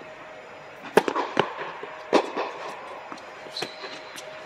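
Tennis racket strikes and ball bounces echoing in an indoor tennis dome: a serve struck about a second in, then quick bounces and the return, and a forehand struck near the end. A short high squeak comes about three and a half seconds in.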